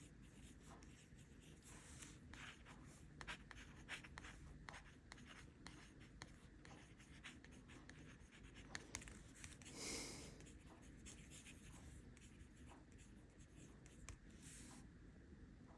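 Faint pen scratching on paper in short strokes and small taps, as words are written out by hand, with a slightly louder scratch about ten seconds in.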